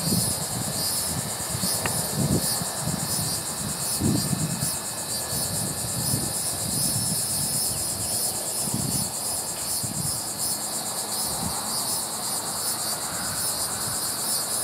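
Steady, shrill insect chorus with a fast pulsing trill. Underneath it is a low, uneven rumble from the hydraulic grapple truck at work.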